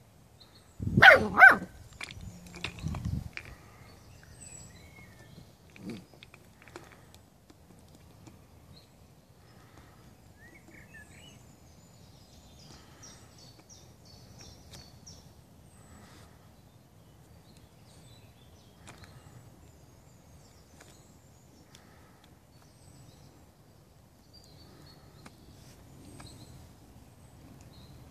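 Bernese mountain dog puppy barking twice in quick succession about a second in. After that it is quiet, with faint bird chirps.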